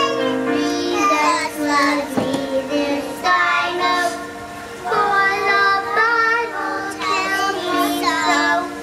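Young girls singing a song, with music in long held notes playing behind them.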